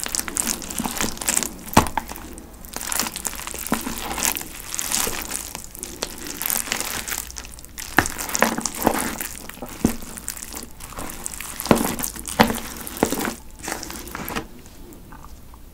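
Chopsticks mixing spicy cold buckwheat noodles (bibim naengmyeon) in a thin plastic delivery tub: dense irregular clicks and crackles, with a few sharper knocks against the tub. It dies down about a second before the end. The noodles have swollen and stuck together into a lump, almost like rice cake.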